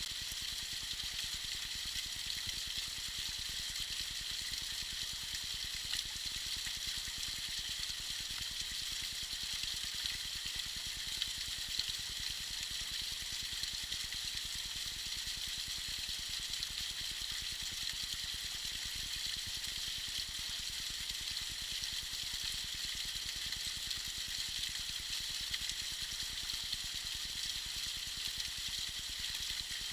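Tiny icy waterfall: water splashing and trickling steadily with a high-pitched hiss.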